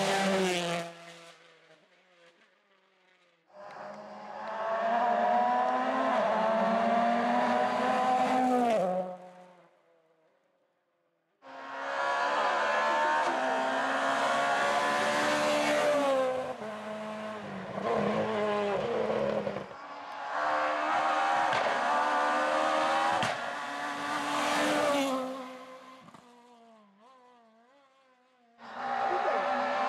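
Rally cars on a tarmac special stage, among them a Hyundai i20 WRC and a Peugeot 207 S2000, one after another, about five passes. Each engine is driven hard: revs climb and drop through the gear changes, then fade as the car goes away. The next car starts abruptly, and there is a short near-silent gap between two of them.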